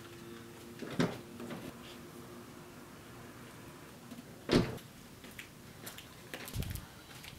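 An SUV's door being handled: a knock about a second in and a louder door slam about four and a half seconds in, then lighter knocks and rustling as two bagged camp chairs are carried.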